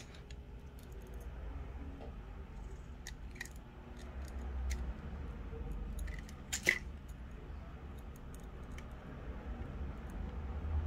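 Small scattered clicks and taps of a precision screwdriver and tiny screws being fitted into a DJI Mini 2 drone's plastic body, with one sharper click about two-thirds of the way through, over a low steady rumble.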